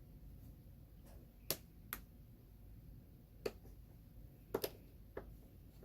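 About six sharp, light clicks and taps at irregular intervals, with two in quick succession near the middle: small tools and a screw knocking against the metal parts inside an opened iMac while a magnetized Torx screw is worked loose.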